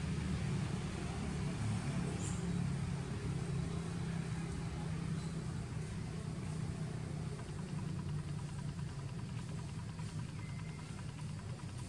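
Steady low engine hum, like a motor vehicle idling, easing off a little in the second half.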